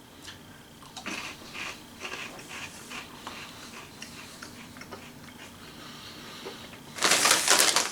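Crunchy corn-puff cheese snacks being chewed close to the microphone: a run of crisp crunches for a couple of seconds, softer crackling, then a louder burst of crackling near the end.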